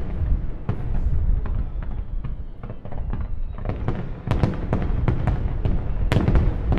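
Barrage of aerial firework shells bursting one after another: a continuous deep rumble of booms under sharp cracks, the cracks coming thicker and louder from about four seconds in.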